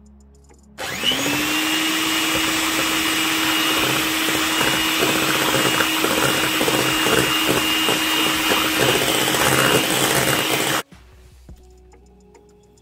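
Electric hand mixer beating flour into a thin batter in a glass bowl. It starts about a second in, spins up quickly to a steady whine, runs for about ten seconds, then cuts off suddenly.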